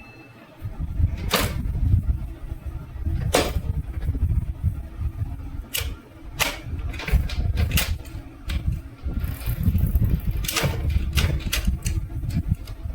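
Sharp clicks and clacks, about a dozen, scattered irregularly over a loud, uneven low rumble.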